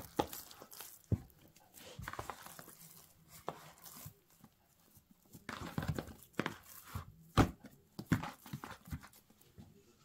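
Oiled hands turning over and folding soft, sticky wheat bread dough in a bowl, the half-hourly turn during its rise: irregular slaps and squelches of the dough, coming in bunches with short pauses between.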